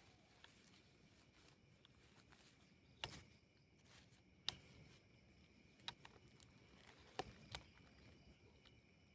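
Faint forest night ambience with a steady high insect drone, broken by five short sharp clicks or knocks at uneven intervals.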